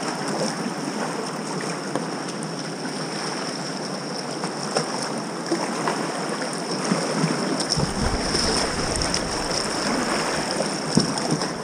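Whitewater rapid rushing around a kayak, with paddle strokes splashing in the water. A low rumble comes in for a second or two about eight seconds in.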